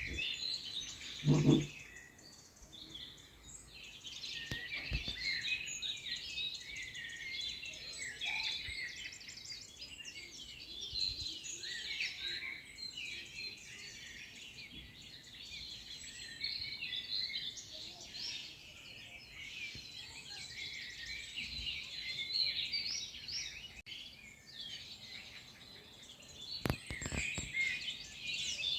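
Small birds chirping and singing together, many overlapping short calls. A brief low thud sounds about a second and a half in, louder than the birds.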